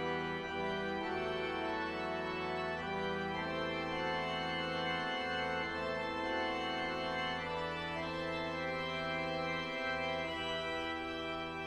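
Organ playing sustained chords over a low pedal note that is held throughout, the chords changing every few seconds, in a fanfare for trumpet and organ.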